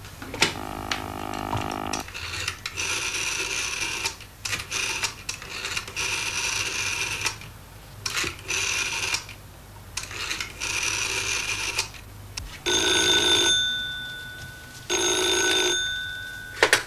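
Rotary telephone: a short dial tone, then the dial is turned and whirs back several times as a number is dialled, each run lasting a second or two. Then a telephone bell rings twice, loud, each ring about a second and a half long, the second one fading out.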